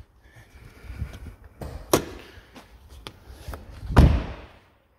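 Knocks and clatter of spare car parts being opened up and handled, with a sharp click about two seconds in and a heavy thump about four seconds in.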